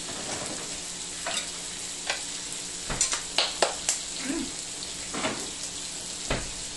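Meat sizzling on a tabletop Korean barbecue grill plate, a steady hiss, with a few sharp clicks of utensils against dishes, several of them about three to four seconds in.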